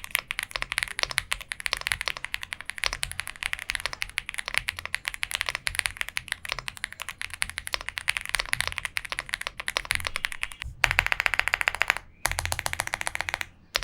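Typing on an Aula F75 gasket-mounted 75% keyboard with Leobog Reaper linear switches, polycarbonate plate and PBT keycaps: a steady stream of keystrokes. Near the end come two quicker, more even runs of keystrokes, each followed by a brief pause.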